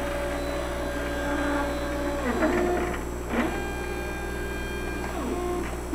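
Stepper motors of a TomTec Quadra 4 liquid handler driving the plate shuttle between positions on its X-Y axes. A steady motor whine holds for about two seconds, then glides down as the shuttle slows and rises again as the next move starts, several moves in a row, with clicks about halfway through as the shuttle stops and starts.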